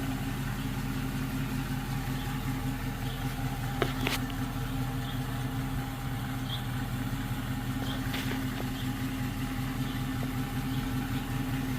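A car engine idling steadily, a low even hum, with a couple of faint clicks a few seconds in.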